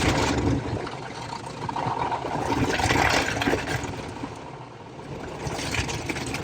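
Automatic touch car wash working over a Jeep Gladiator's soft top, heard from inside the cab: a rushing wash noise that swells and fades, with scattered knocks and rattles.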